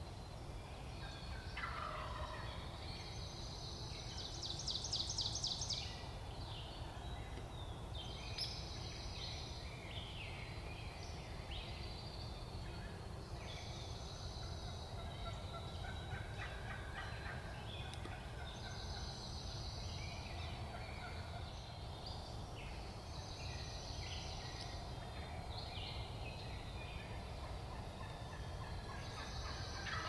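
Wild turkey gobbler gobbling in spring woods, the loudest rattling gobble about four to six seconds in, with smaller bird calls scattered through the rest.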